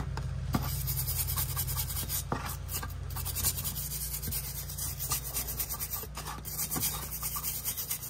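Stiff brush scrubbing a rusty steel disc-brake part over a parts-washer tub: quick, repeated back-and-forth scratching strokes. A steady low hum runs underneath.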